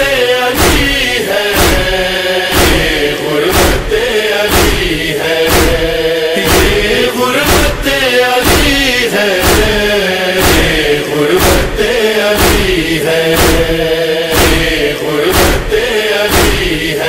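Wordless male chorus chanting a wavering, drawn-out lament melody over a steady beat of matam chest-strikes, about one every three-quarters of a second.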